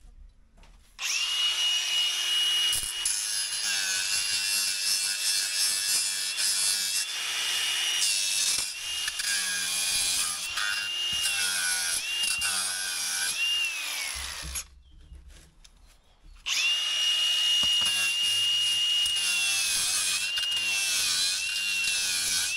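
Cordless angle grinder starting up about a second in and cutting down the top of a window frame. Its high whine sags in pitch each time the disc bites and recovers between passes. It stops for a couple of seconds about two thirds of the way through, then starts again and cuts on.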